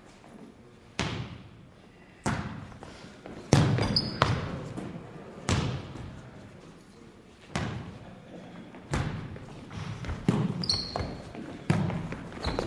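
A soccer ball being kicked again and again, about nine sharp strikes roughly a second or so apart, each echoing as in a large indoor hall. Two short high squeaks come in among the kicks.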